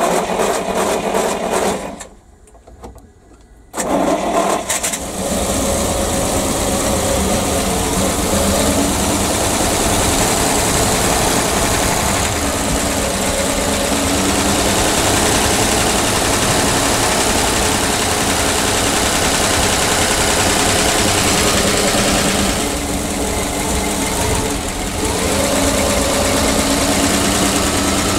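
PAZ-672 bus's V8 petrol engine running at idle after a valve adjustment, smooth and even, with the earlier tapping knock gone. The sound dips away briefly about two seconds in, then the engine runs steadily again.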